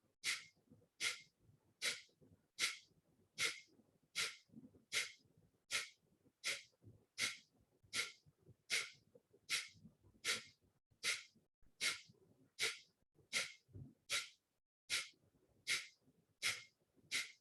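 Kapalbhati breathing: short, forceful exhalations pushed out through the nose, evenly paced at about one every three-quarters of a second, with faint passive inhalations between them.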